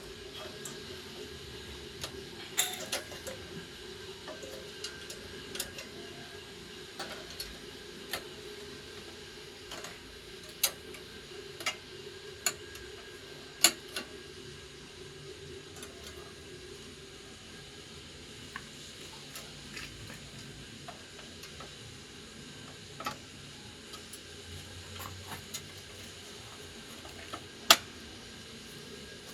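Scattered sharp clicks and light metallic clinks of tools and small parts being handled, a couple of them much louder than the rest, over a steady low hum that fades out a little past halfway.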